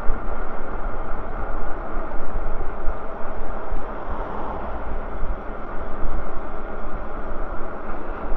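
Gusty wind rush on the microphone of a moving e-bike, over steady tyre noise on paved road.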